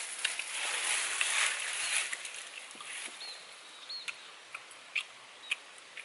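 Dry leaves and twigs rustle and crackle as a person shifts and leans back on rocky, leaf-strewn ground. The rustling swells in the first two seconds, then fades to scattered clicks, with a few short high chirps.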